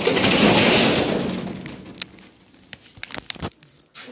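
A rolling metal shop shutter rattles loudly for about two seconds, then fades. A few scattered clicks and knocks follow.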